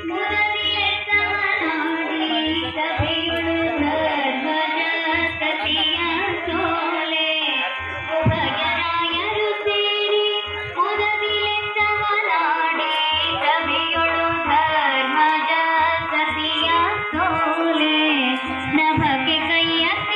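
Carnatic-style devotional song: a voice singing a gliding, ornamented melody with instrumental accompaniment, over clusters of low drum strokes.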